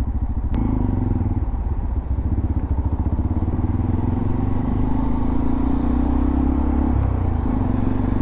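Honda Monkey 125's single-cylinder four-stroke engine idling, then pulling away about half a second in and running under throttle, with a few brief dips in its note.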